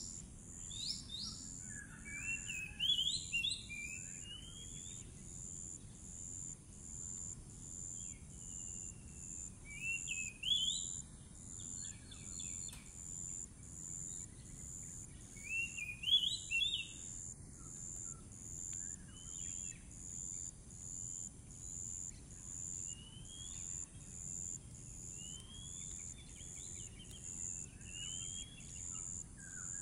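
Oriental magpie-robin (kacer) singing short phrases of quick rising notes every few seconds, over a steady, evenly pulsing high buzz.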